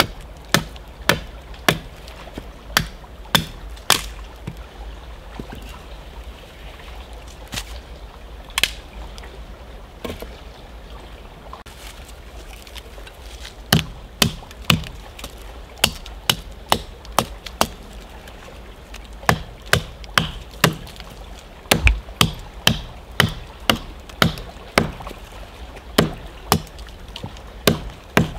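A small axe chopping into the wood of a tree stump: a run of sharp chops, a few seconds of only scattered blows in the first half, then steady chopping at about two strokes a second.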